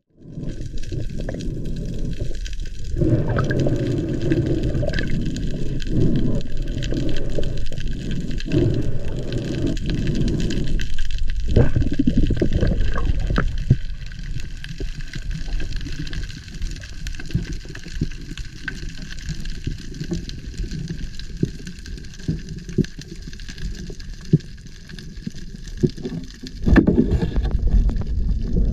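Water sloshing and gurgling around a camera in its underwater housing during a free dive, quieter through the middle stretch and picking up again near the end.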